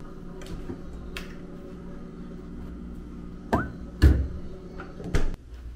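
Refrigerator door opened and a can taken from the door shelf: a steady low hum with a few light clicks, a short squeak, then a sharp knock about four seconds in and another knock just after five seconds.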